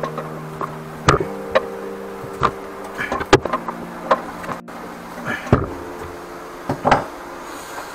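Irregular knocks and clicks from handling parts around a heating distributor's pipes, over a steady low hum that stops near the end.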